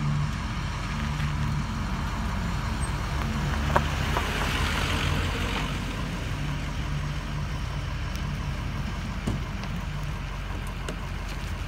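Car engines running as cars drive slowly past, with a louder swell of tyre and engine noise from one passing car about four to six seconds in.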